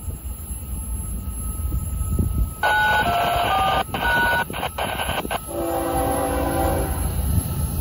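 Horn of an approaching Florida East Coast freight's diesel locomotive sounding over a low rumble. It starts about a third of the way in with a loud stretch of short, shifting notes, then holds a steadier chord for about a second and a half before fading.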